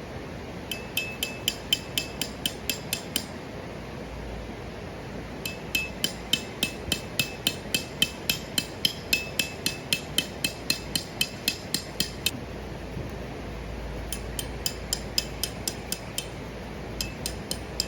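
Hammer driving a metal tent peg into the ground in quick runs of strikes, about four a second, each strike with a short metallic ring.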